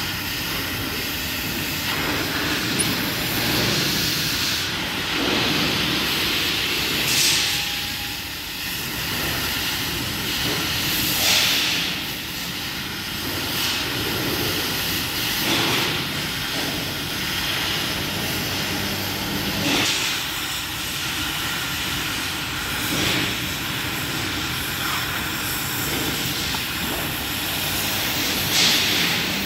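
Oxy-fuel gas cutting torch hissing steadily as its flame heats and cuts steel rebar, with louder gusts of hissing every few seconds.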